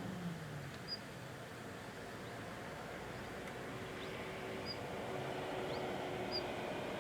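Outdoor waterside ambience: a steady background hiss with a faint low hum, and short high chirps from a small bird a few times.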